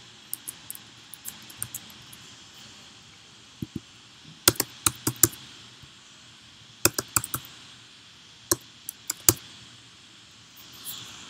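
Computer keyboard keys clicking in short, irregular bursts of a few keystrokes each, separated by pauses of a second or more, as code is typed and edited.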